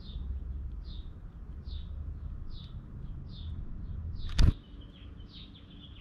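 House sparrow chirping, one short chirp about every second, over a low rumble. A single sharp knock about four seconds in.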